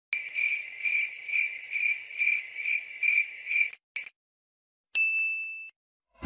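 Bicycle bell rung over and over in a continuous pulsing ring for almost four seconds, then a short ring, then one clear ding about five seconds in.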